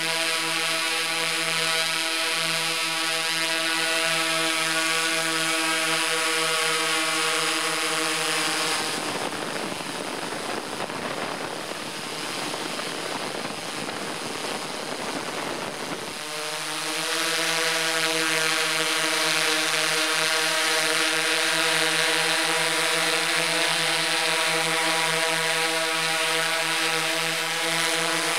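Drone's motors and propellers whining steadily in flight. For several seconds in the middle the whine gives way to an even rushing noise, then returns.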